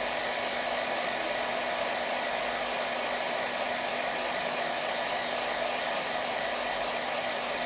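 iTeraCare terahertz wand running, its built-in fan giving a steady, even whir of blowing air with a faint low hum underneath.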